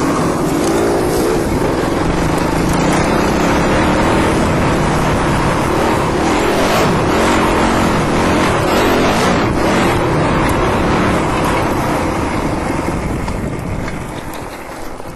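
Dirt bike engine running under load along a trail, its note wavering up and down with the throttle, heard close up from the rider's helmet; it eases off near the end.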